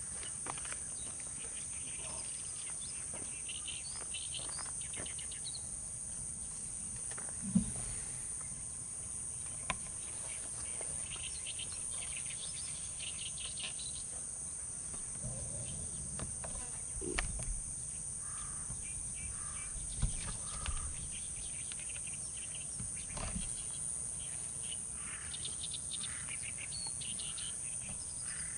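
Steady high-pitched insect trilling, with scattered bird chirps over it and a few short knocks, the loudest a sharp one at about eight seconds in.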